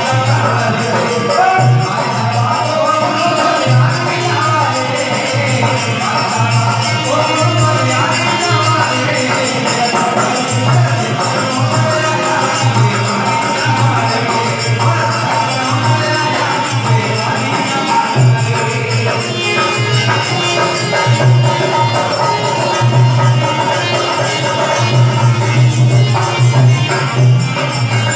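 Live Marathi devotional song: a singer with harmonium, a barrel hand drum beating steadily underneath, and jingling metal percussion keeping time. The music runs loud and unbroken.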